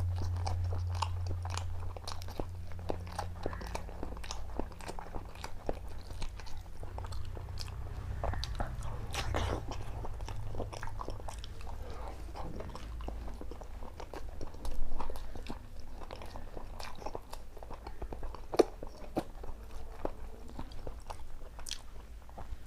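A person chewing and crunching food close to the microphone, with many small crunchy bites over a low steady hum. A louder bite or knock comes about fifteen seconds in.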